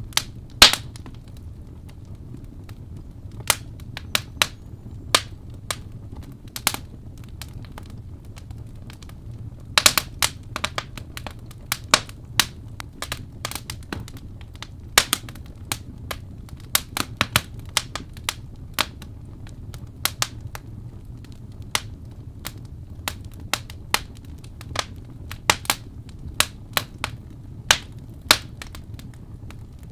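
Crackling fireplace: irregular sharp pops and snaps of burning wood over a low steady rumble.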